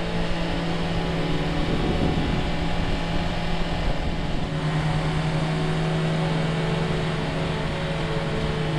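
Motorcycle engine running at a steady cruising speed, one held engine note that strengthens slightly about halfway through, over constant wind rush.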